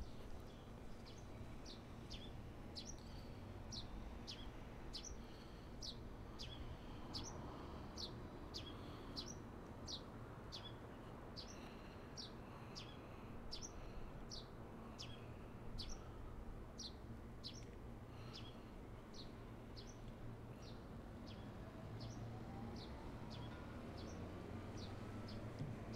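Faint, short, high bird-like chirps, each falling in pitch, repeated evenly about twice a second, over a low steady hum. A faint rising tone sounds near the end.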